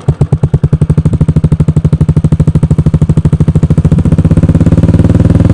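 Royal Enfield single-cylinder 350 running through an aftermarket Cobra silencer, giving a loud, steady, bassy thump-thump exhaust beat. The beat gets a little faster and louder about four seconds in as the throttle is opened slightly.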